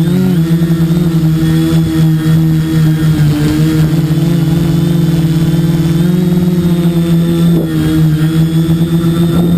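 Multirotor drone's electric motors and propellers humming steadily while it hovers, heard loud and close from the onboard camera. The pitch wobbles briefly near the start and rises slightly about six seconds in.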